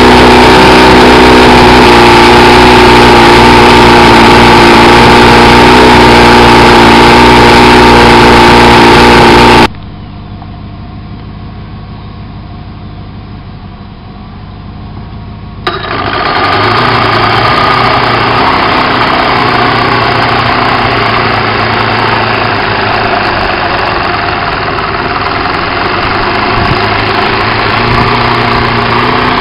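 Johnson 140 hp V4 two-stroke outboard running loud and steady on a garden-hose flush hookup, its propeller spinning in the air. After a cut there are a few seconds of much quieter outdoor sound. Just past halfway the same motor starts abruptly and idles steadily in the water.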